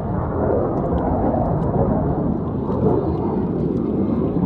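A CF-18 Hornet fighter's twin General Electric F404 turbofan engines making jet noise during an aerobatic display pass. It is a steady, heavy, low rumble.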